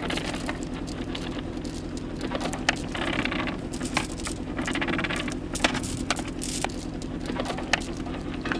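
Anchor chain being hauled up by hand, clinking and rattling irregularly as it is pulled over the bow and drops into the anchor locker, over the steady low hum of the boat's idling engine.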